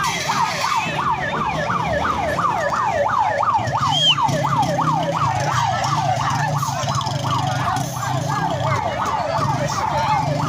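Fire truck siren in a fast yelp, each cycle a quick rise and fall in pitch, about three a second, over a low steady hum.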